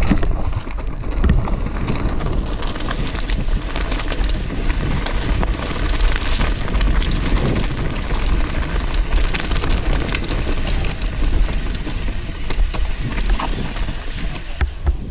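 Mountain bike descending a dirt trail at speed: tyres crunching over dirt and stones, the bike rattling and clattering over bumps, with wind buffeting the camera's microphone. It gets somewhat quieter near the end as the bike rolls onto paved road.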